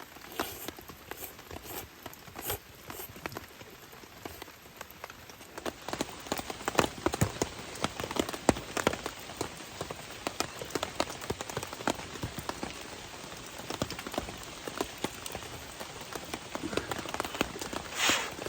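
Steady rain falling, with many separate drops striking a surface in irregular clicks; it gets louder about six seconds in.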